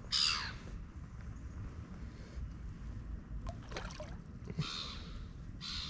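Hooked fish splashing and swirling at the water's surface near the landing net while being played, with two brief splashes, one at the start and one near the end. A low wind rumble on the microphone runs underneath.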